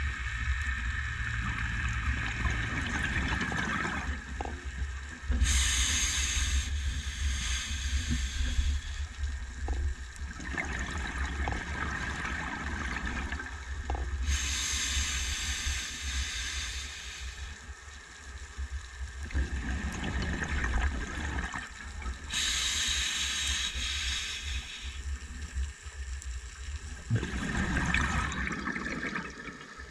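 A scuba diver breathing through an open-circuit regulator underwater: a hiss of air on each slow inhale, about four times, alternating with longer stretches of exhaled bubbles gurgling and rumbling.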